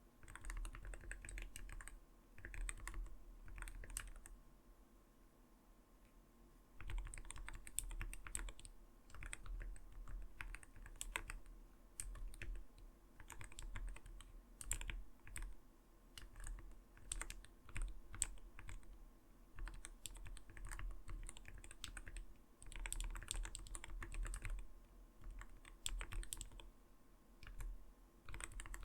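Continuous typing on an Arbiter Studio Polar 65 mechanical gaming keyboard: rapid runs of soft, muted keystrokes, the low 'kotokoto' clack the keyboard is tuned for. The typing pauses for a couple of seconds about five seconds in, then resumes.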